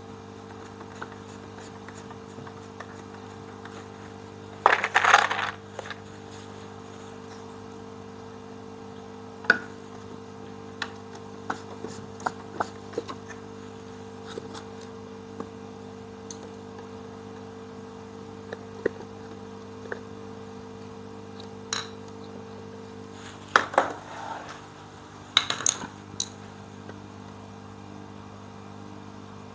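Hand screwdriver driving screws into a wooden rack frame, with scattered small clicks and metallic clinks of screws and tools. There are louder clattering bursts about five seconds in and again near the end, over a steady low hum.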